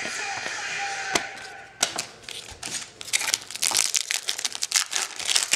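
Foil wrapper of a 2010 Topps Chrome baseball card pack crinkling and crackling in the hands as it is opened, louder and denser in the second half.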